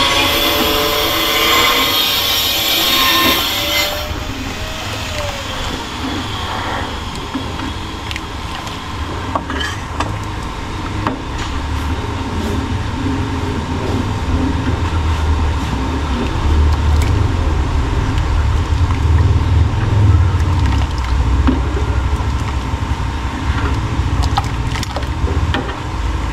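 Cornstarch slurry poured into a pan of hot palabok sauce, a hiss for about the first four seconds, then a metal ladle stirring the thickening sauce, with faint scrapes and clicks against the pan over a steady low rumble.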